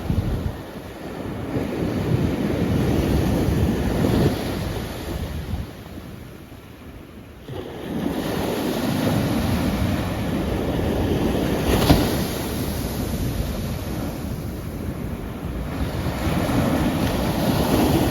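Ocean waves breaking and washing in surges that swell and ebb. There is a quieter lull about six seconds in and a sharper crash about twelve seconds in.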